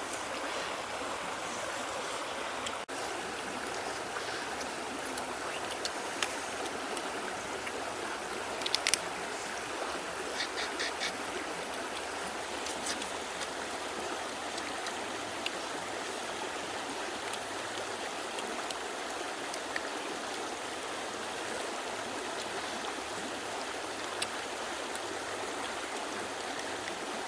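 Steady rushing of a flowing river or stream, with a few short, sharp clicks about a third of the way in.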